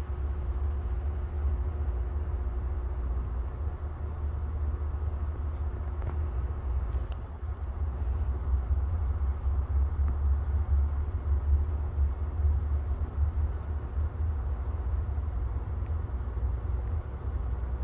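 Low, steady rumble of a freight train's diesel locomotives approaching, with a faint steady hum over it in the first few seconds.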